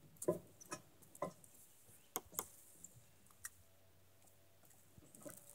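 Several light, irregular clicks and taps close to the microphone, most of them in the first two and a half seconds: shoes shifting on the hard shoreline ledge beside the camera.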